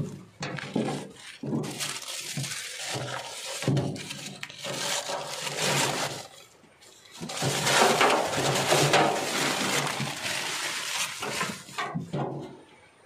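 Old newspaper lining being crumpled, torn and pulled out of a trunk by hand, with cloth rustling. The paper noise comes in two long stretches with a short lull about six to seven seconds in.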